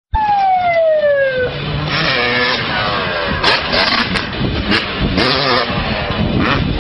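Motorcycle engine at high revs, its pitch falling steadily over the first second and a half, then rising and falling as the throttle is worked.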